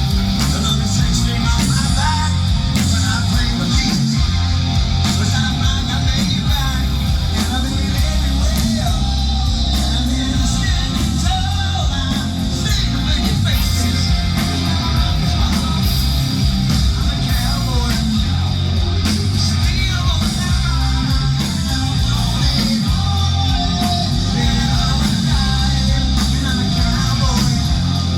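Live rock band playing loudly, with a full band sound of guitars, bass and drums.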